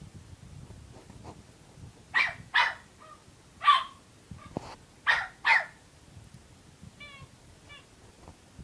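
Puppy barking five short, sharp, high barks, mostly in quick pairs, at a person to get him to play.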